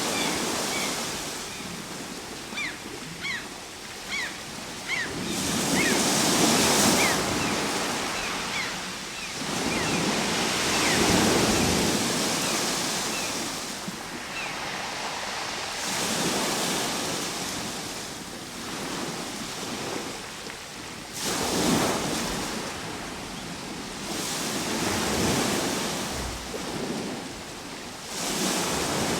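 Ocean surf: waves break and wash in, swelling and fading about every five seconds. Through the first ten seconds or so, a run of short, high chirps sounds over the surf.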